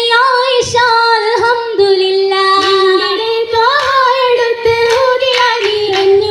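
Girls' voices singing an Oppana song (a Mappila song) through the stage PA, a sustained melody with sliding ornaments. The dancers' rhythmic hand claps join in during the second half.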